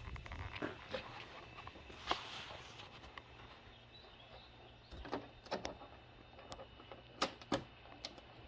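Plastic push-pin retainers and the undertray panel being handled under a car's bumper: scattered light clicks and taps, a short rustle about two seconds in, and two sharper clicks near the end.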